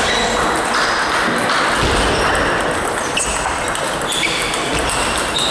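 Table tennis ball clicking off the bats and bouncing on the table in a rally, with more pings from neighbouring tables over steady hall noise.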